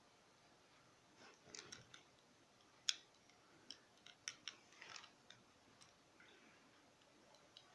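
Faint handling sounds: a scatter of light clicks and soft rustles, the sharpest about three seconds in, over near-silent room tone.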